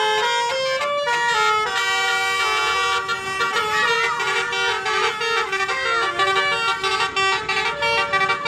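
Basuri musical bus horn (telolet horn) playing a tune, its multi-note horn blasts stepping up and down in pitch from note to note.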